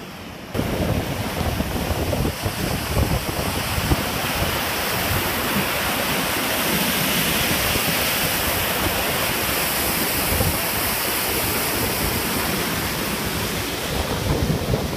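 Water pouring over the top of a canal lock gate into the lock chamber, a steady rush that starts suddenly about half a second in. Wind buffets the microphone under it.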